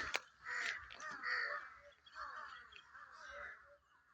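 A flock of crows cawing, many harsh calls one after another and overlapping, thinning out towards the end. A sharp click near the start.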